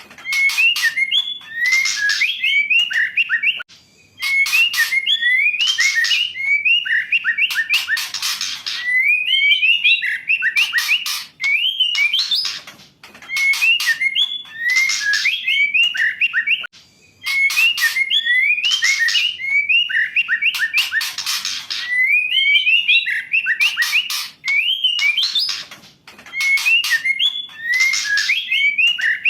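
Female white-rumped shama singing in repeated phrases of quick whistled notes that slide up and down, mixed with harsh rasping notes. Each phrase lasts a few seconds, with short pauses between.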